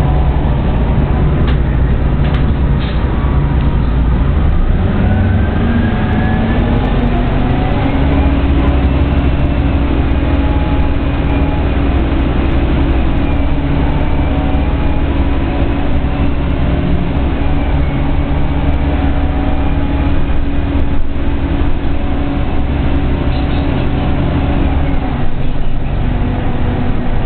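Orion V CNG transit bus heard from inside the cabin: a steady low engine hum with a drivetrain whine that rises as the bus pulls away about four seconds in. The whine then holds level while it cruises and falls away near the end as it slows.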